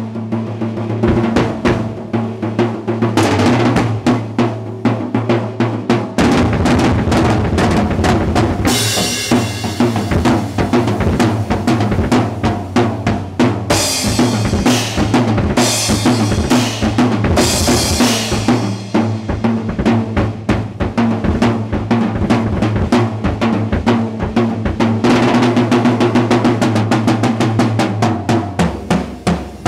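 Acoustic drum kit played in a fast, busy solo: rapid snare and tom strokes and rolls over bass drum hits, with cymbal crashes about a third of the way in, again around the middle, and near the end.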